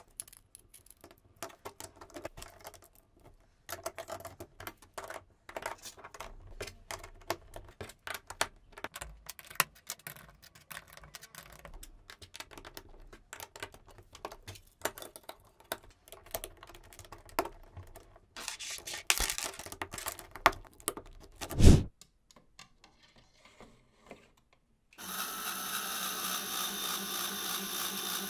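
LEGO Technic bricks and plates clicking and clacking as they are handled and snapped together, with one loud thump about three quarters through. Near the end a LEGO electric motor starts and runs steadily, driving the gear turntable of the wire-bending machine.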